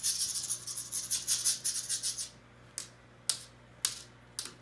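A handheld cat lure on a red cord being shaken to call cats: a quick dry rattling for about two seconds, then four separate sharp clicks.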